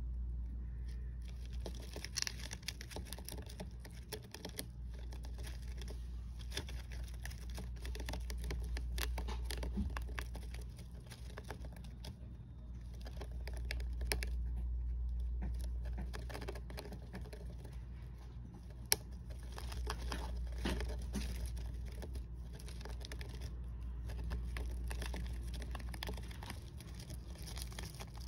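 Dwarf hamster gnawing on a wooden stick: a long run of small dry crunching clicks and scratches, with one sharper click about two-thirds of the way through, over a steady low hum.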